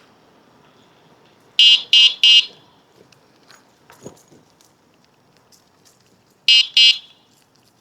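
Electronic beeper on an electric bike sounding short, loud, high-pitched beeps: three in quick succession, then two more about five seconds later.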